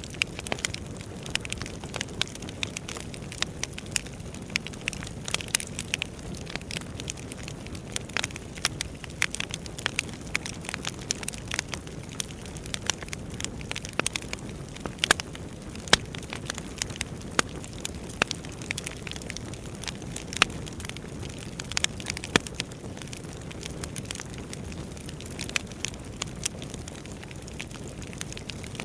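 Wood fire crackling: a steady low hiss of flames with frequent irregular sharp pops and snaps from the burning logs.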